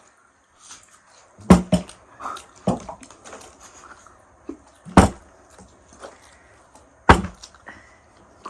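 Bottle being flipped and landing with sharp knocks on a hard surface: a double knock about a second and a half in, then single knocks a few seconds apart.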